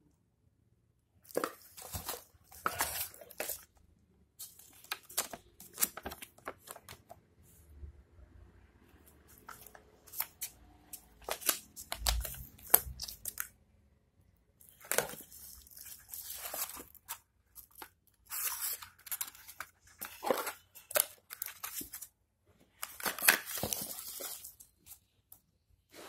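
Plastic packaging and bubble wrap crinkling and rustling in the hands, in irregular bursts of a second or two with short pauses between.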